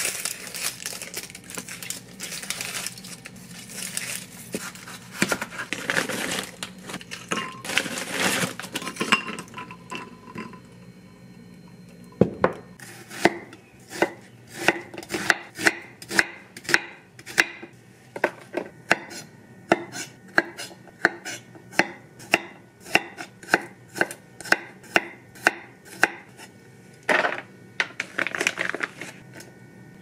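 A knife peeling an onion, the dry papery skin crackling and rustling for the first several seconds. After about twelve seconds comes a knife chopping onion on a wooden cutting board, with steady knocks about two a second. A short scraping rustle follows near the end.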